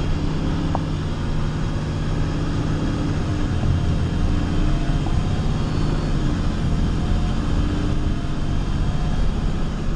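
Fire engine's diesel engine running steadily, heard from inside the cab, its pitch dipping slightly a few seconds in and rising again soon after.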